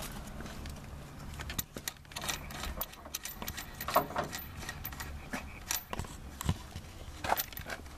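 Scattered metallic clicks and knocks of hand tools at work, a ratchet and its socket loosening the steering-wheel nut, over a low steady hum.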